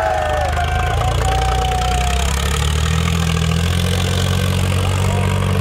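Preet 955 tractor's diesel engine running steadily under load as the tractor balances on its rear wheels in a wheelie, its low rumble growing fuller about three seconds in.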